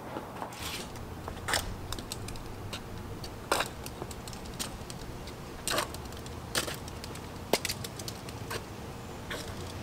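Sneakers stepping and scuffing on concrete: irregular clicks and a few short scrapes, over a low steady hum.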